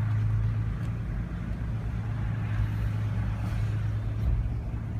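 Steady low drone of a supercharged FJ's engine, headers-back exhaust and tyres, heard from inside the cab while driving at light throttle.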